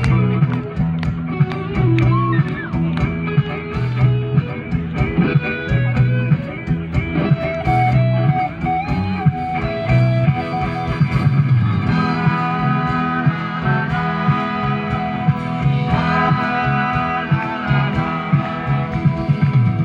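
Band music: a guitar playing a melody over a bass line and a steady drum beat.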